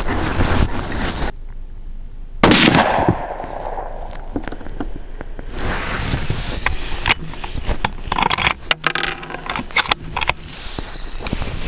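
A single rifle shot from an Orsis 120 bolt-action rifle about two and a half seconds in, with a short decaying echo. It is followed by wind noise and a few sharp clicks.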